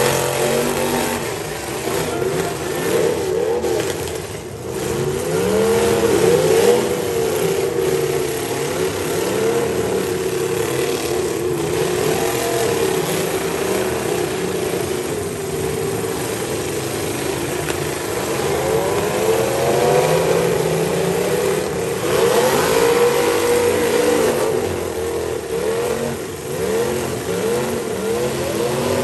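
Several demolition derby cars' engines revving high and dropping back over and over, their pitches overlapping as the cars spin their wheels in the mud and push against each other.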